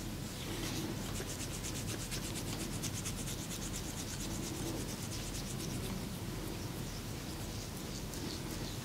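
Hands rubbing in a fast massage, an even run of short strokes several times a second with a slower swell about every second and a half.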